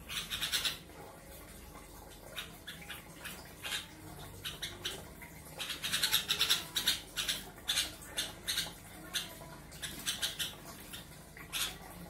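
A caged long-tailed shrike and sooty-headed bulbul giving short, harsh calls in rapid clusters, busiest about halfway through, as the two birds face off.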